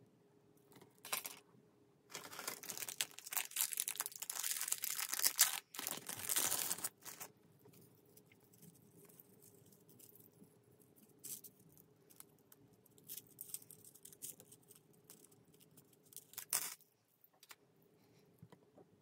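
Plastic packaging crinkling and rustling as it is handled, for about five seconds starting about two seconds in, then a few light clicks and a short rustle near the end.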